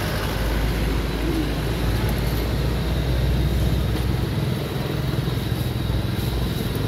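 Steady low rumbling noise with an even hiss over it, without breaks or separate knocks.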